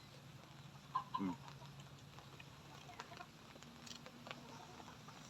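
A chicken clucking briefly about a second in, with a few faint clicks later.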